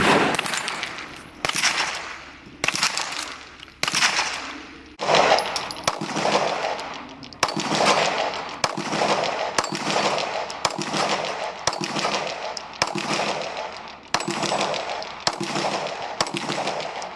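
Rifle shots fired one after another at a steady pace, roughly one a second, about fifteen in all. Each sharp crack trails off into a long echoing decay before the next.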